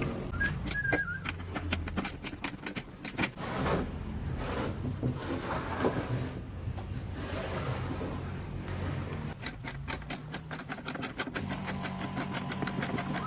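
A small motor-driven workshop tool running with a low hum and scattered clicks, turning into a rapid, even clatter in the last few seconds. Birds chirp briefly near the start.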